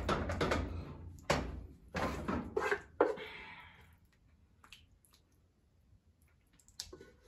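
Wooden spoon knocking and scraping against the inside of a metal cooking pot as thick macaroni and cheese is scooped out. Several sharp knocks in the first three seconds, then only a few faint clicks.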